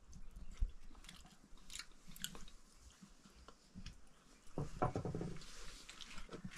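A person chewing soft cooked pumpkin close to the microphone: quiet mouth sounds with small scattered clicks, louder for a moment about two-thirds of the way through.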